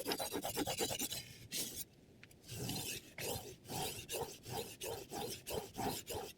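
Chef's knife blade being stroked across a diamond sharpening plate, rasping: quick strokes for about the first second, a short pause, then slower strokes at about two or three a second.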